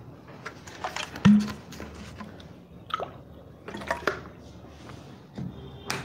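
Off-camera handling noises in a small room: a string of clicks and knocks, the loudest a sharp thump just over a second in, with more clatter about three and four seconds in and near the end.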